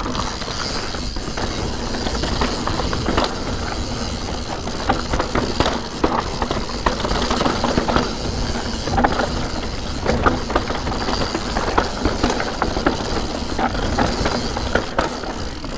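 Full-suspension mountain bike (Santa Cruz Nomad 4) descending a rough dirt and rock trail: a steady rush of tyre and trail noise with many small clattering knocks as the bike rattles over stones and bumps.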